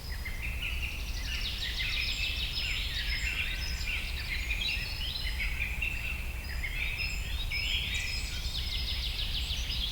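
Several songbirds chirping and singing at once, with overlapping chirps, fast trills and thin high whistles throughout. A steady low rumble runs underneath.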